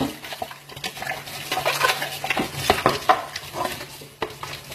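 Irregular light clicking and clattering, a quick uneven run of small knocks, over a steady low hum.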